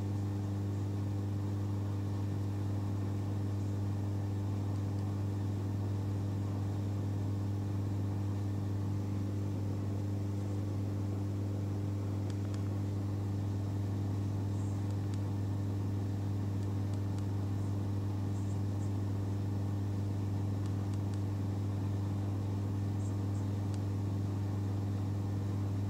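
A steady low hum with a few fainter overtones, unchanging throughout, with a few faint small clicks in the second half.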